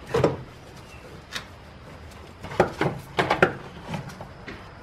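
Alternator being worked loose and lifted out of a BMW M54 engine bay: a string of short metal clunks and knocks, busiest a little over halfway through.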